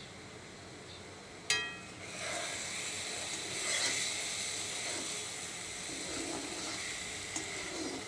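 A metal spatula strikes the iron kadai with a short ringing clink about a second and a half in, then green paste sizzles in hot oil as it is scraped and stirred around the pan.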